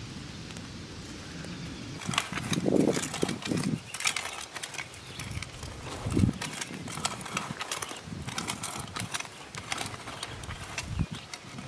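Weeds being pulled by hand from a garden bed: irregular rustling and crackling of leaves and stems with soft thuds, starting about two seconds in.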